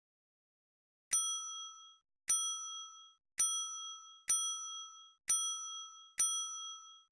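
A short, bright, bell-like ding sound effect played six times about a second apart, each one identical and cut short in under a second: the click sound of an Android app button being tapped.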